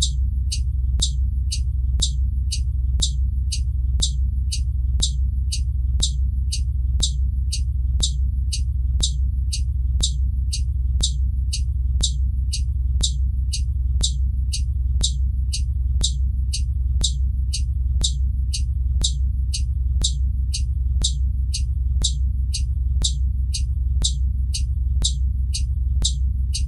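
Blue Bird Vision school bus turn-signal flasher ticking steadily, about two ticks a second, over a steady low rumble.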